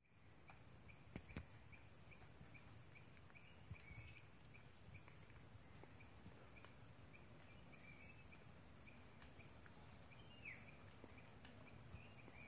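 Faint forest insect chorus: a steady high-pitched shrill, with an on-and-off trill lasting a second or two at a time and short chirps repeating about three times a second. A few faint clicks come through.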